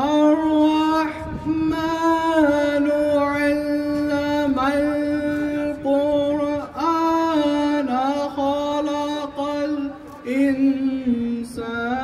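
A single voice in chant-like singing, holding long steady notes that step up and down in pitch, with brief breaks between phrases.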